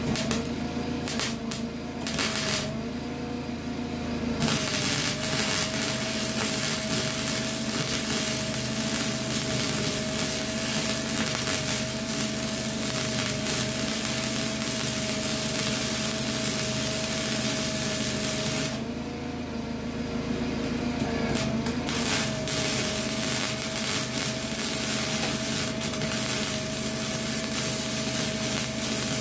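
Small 120-volt welder's arc crackling and sizzling as it lays weld on the bus's sheet-steel floor: a few short bursts at first, then a long run of welding from about four seconds in, a short break around nineteen seconds in, and another long run. A steady hum sits underneath.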